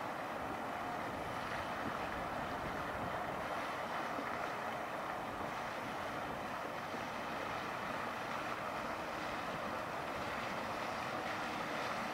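A U.S. Coast Guard small response boat's outboard motors running steadily as it passes, mixed with wind on the microphone and open-water wave noise.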